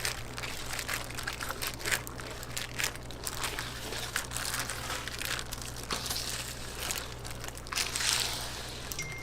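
Irregular crinkling and rustling with many small crackles, as of material being handled and crumpled.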